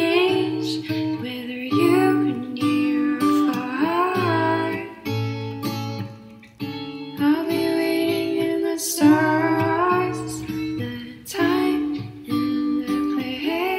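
Background music led by plucked guitar, with a singing voice.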